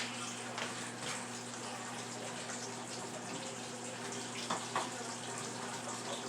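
A utensil scraping and clinking a few times as cream of mushroom soup is spread over a layer of potato casserole in the baking dish, over a steady rushing background noise with a low hum.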